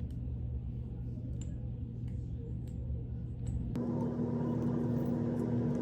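Low, steady rumble with a few faint clicks; about four seconds in it shifts abruptly to a slightly louder hum with a steady tone in it.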